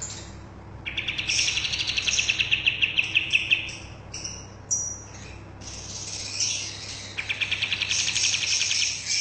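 A kapas tembak songbird singing vigorously: two long, fast trills of rapidly repeated notes, starting about a second in and again about seven seconds in, with shorter, higher chattering phrases between them.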